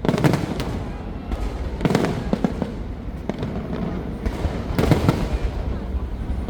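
Aerial fireworks shells bursting, three bursts two to three seconds apart, each trailing into crackling, over a continuous low rumble.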